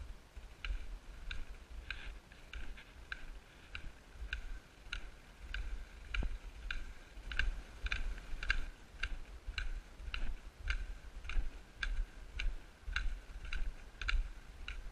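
Footsteps of a hiker walking on a packed snow trail. Each step brings a dull low thud and a sharp click, about two a second, keeping an even rhythm.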